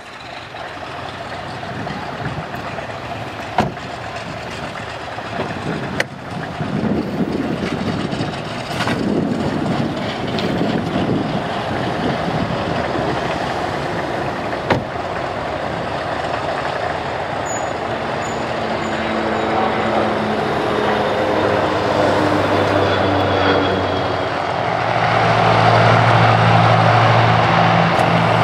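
Douglas C-47A Skytrain (DC-3)'s two Pratt & Whitney R-1830 Twin Wasp radial engines running as the aircraft taxis: a steady rushing drone that grows louder, with a deep, pitched propeller hum coming up strongly over the last few seconds.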